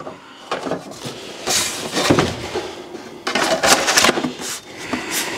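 Plastic bar cover (scabbard) being handled and slid over a Stihl chainsaw's bar and chain: irregular scraping and rattling, loudest in two spells around two seconds in and again around four seconds in.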